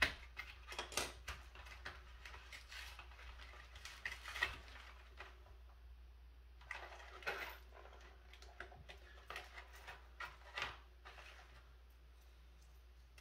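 Small metal bolts and washers clinking and clicking as they are handled during chair assembly, in scattered bunches of light taps.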